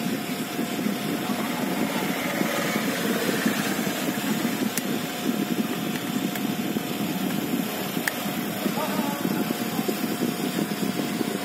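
A steady low mechanical hum, like a motor running, with a faint steady tone above it and a few light clicks.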